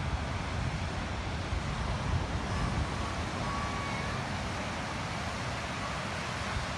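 Wind buffeting the microphone as a steady low rumble, over the wash of small waves breaking on a sandy beach.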